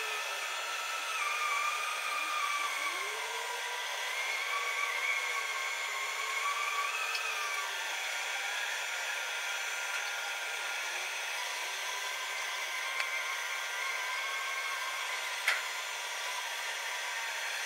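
Steady machine whir from the SLJ900/32 bridge erecting machine as it slowly extends forward, with a whine that wavers gently up and down in pitch. A single sharp click comes about fifteen seconds in.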